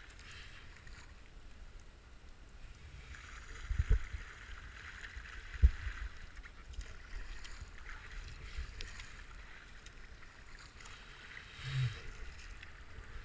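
Kayak running a river rapid: steady rush and splash of moving water around the hull and the paddle strokes. Two short low knocks about four and six seconds in, the second the loudest.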